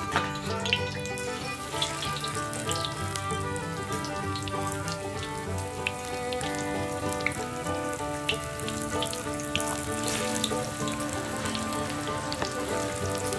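Food frying in a hot pan: a steady sizzle with scattered crackles and pops, under background music with long held notes.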